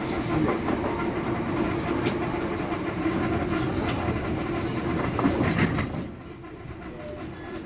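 Class 317/6 electric multiple unit running along the line, heard from inside the carriage: a steady rolling rumble with a few sharp clicks, getting quieter about six seconds in.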